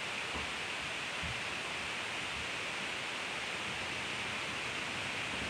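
Steady, even hiss with no other events.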